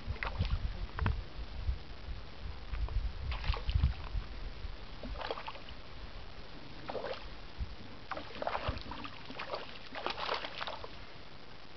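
A hooked rainbow trout thrashing and splashing at the water surface while being played on a fly line, in repeated short splashes that come more often in the second half. Low rumbling thumps sound in the first few seconds.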